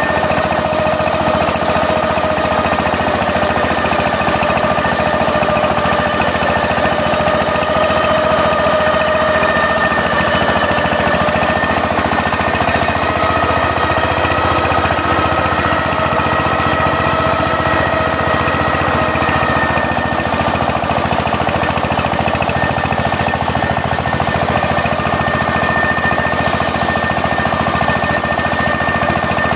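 Single-cylinder diesel engine of a two-wheel power tiller running steadily under load as it works the field, with a rapid, even knocking beat. A few steady high whining tones sit over the knocking.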